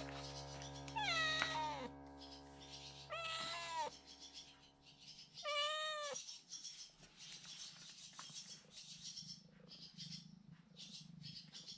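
Nursing mother cat meowing three times, a drawn-out call about every two seconds in the first six seconds, each bending up and then falling in pitch.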